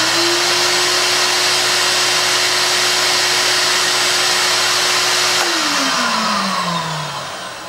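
Shop vac running steadily at full speed, sucking through a water-bucket particulate trap on a bead-blast cabinet whose vent is capped, so it is pulling against a sealed cabinet. About five and a half seconds in it is switched off and winds down, its pitch falling.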